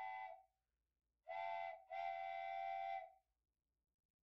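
Steam locomotive whistle sounding several tones together: the tail of one long blast, then a short toot and a longer one.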